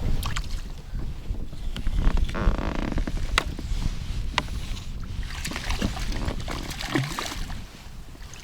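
Handling noise in a small fishing boat: scattered knocks and clicks over a steady low rumble, with a buzzy rustle about two to three seconds in.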